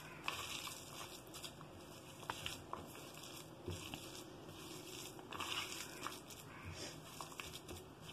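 A bare hand squishing and kneading mashed boiled potato with chopped onion and herbs on a steel plate: faint, irregular squishing and rustling with a few small clicks.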